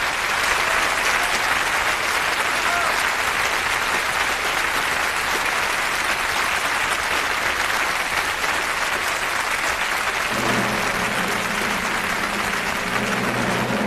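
Studio audience applauding steadily. About ten seconds in, a low held musical chord enters under the clapping.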